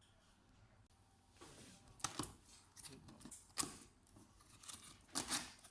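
Packaging being torn open and crinkled by hand, in several short scratchy bursts.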